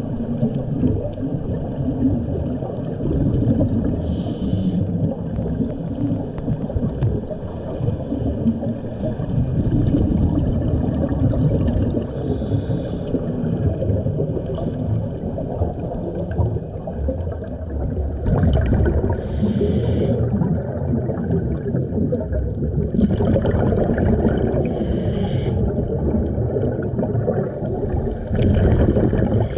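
Scuba regulator breathing heard underwater: a short hiss about every six to eight seconds, five times, over a steady low rumble of water and exhaled bubbles.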